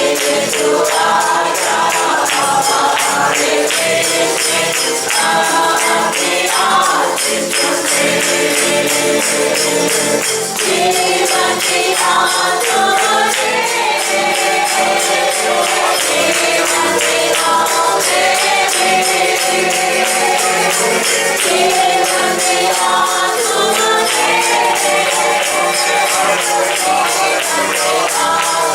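Congregational worship song: voices singing a melody over a steady, driving tambourine beat.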